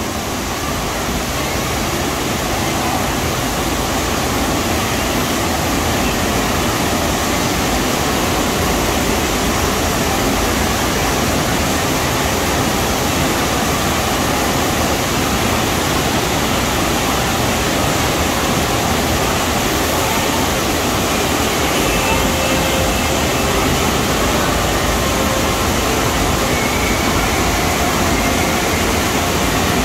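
FlowRider sheet-wave machine running: pumped water rushing steadily up over the ride surface.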